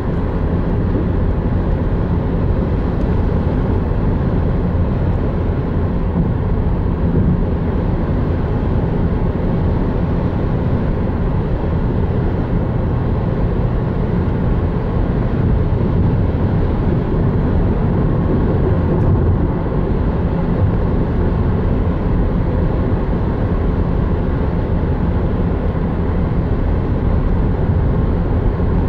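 Steady low drone of tyre and engine noise inside a car's cabin while driving at highway speed.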